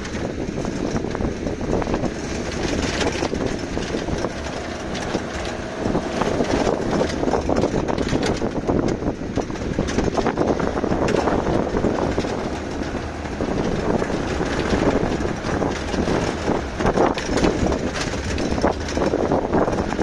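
Pickup truck driving over rough ground, heard from its open cargo bed: a steady run of engine and road noise with many small metallic rattles and knocks, as the bed's metal railings shake.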